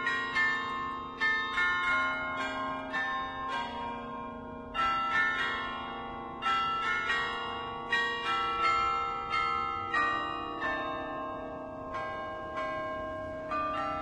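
Church bells ringing in a steady run of strikes, about two or three a second, each note ringing on under the next.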